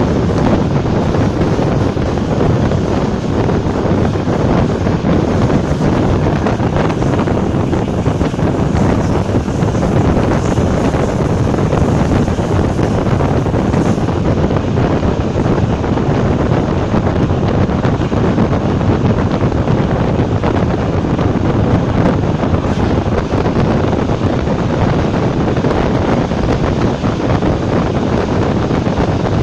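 Class 460 electric multiple unit running at speed: a loud, steady rush of wind and rolling noise, with wind buffeting the microphone.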